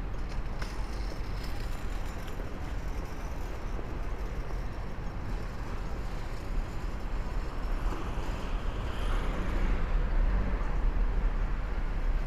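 Busy street ambience on a walking camera's microphone: a steady low rumble under a noisy wash of city sound, a little louder for a few seconds near the end.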